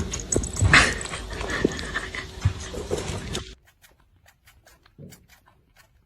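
Close, busy sounds from a small pet animal, with short whimpering cries among knocks and rustling, that cut off abruptly after about three and a half seconds, leaving only faint ticks.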